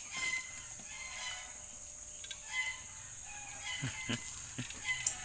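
Domestic chickens clucking and a rooster crowing, over a steady high-pitched hiss.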